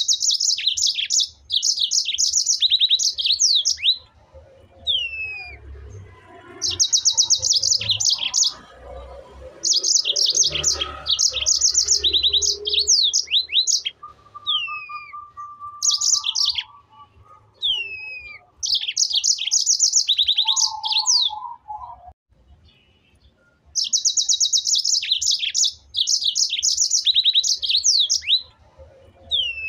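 A bird singing: repeated bursts of rapid high chirps, each lasting a couple of seconds, with single falling whistled notes between the bursts.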